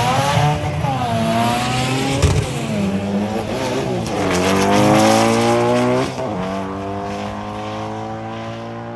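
Drag race car engine accelerating hard down the strip, its pitch climbing then dropping sharply at each upshift several times. It grows quieter after about six seconds as the car pulls away.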